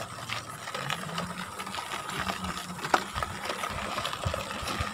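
Bicycle rattling and clicking as it is ridden, over a faint steady hum.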